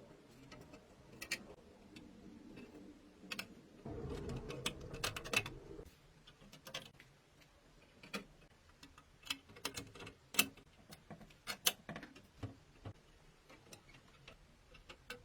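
Irregular sharp clicks and taps of small hard parts being handled, with a stretch of rubbing or scraping about four seconds in that lasts a couple of seconds.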